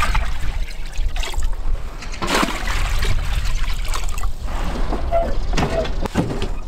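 Water poured from a dipper into a large metal pot, splashing in several separate pours, with wind rumbling on the microphone.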